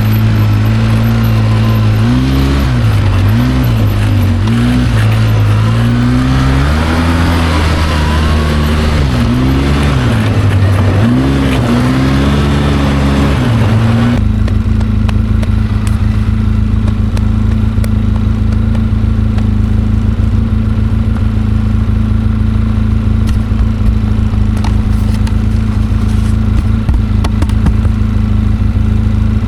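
ATV engine running, its pitch rising and falling repeatedly with the throttle for about the first half, then changing abruptly to a steady, even engine note.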